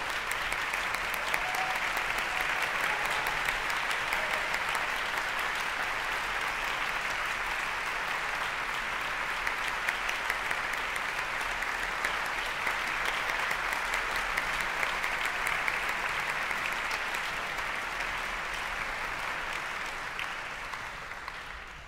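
Audience applauding steadily, dying away over the last few seconds.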